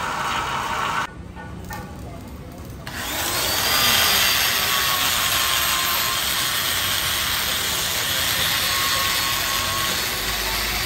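Electric die grinder with a small abrasive wheel grinding the inside of a cast iron engine block bore, a steady high whine over the grit noise. It drops away about a second in, then spins back up just before three seconds in and grinds steadily on.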